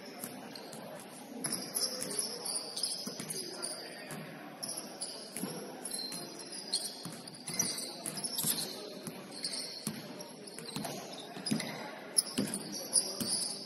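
Basketball game sounds in a gym: sneakers squeaking on the court and the ball bouncing, with scattered voices of players.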